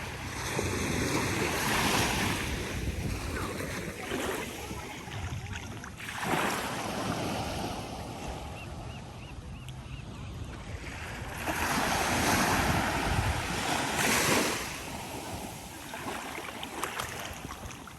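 Surf breaking and washing up the beach in repeated swells, each rising and then falling away, with the loudest one around twelve to fourteen seconds in. Wind buffets the microphone underneath.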